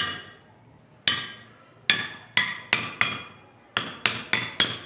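Pipes of different lengths struck one after another, about ten sharp strikes, each ringing briefly at its own pitch. The pitch is set by the pipe's length: the longer pipes sound lower.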